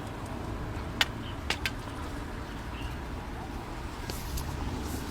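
Steady low outdoor rumble, with three sharp short clicks between one and two seconds in.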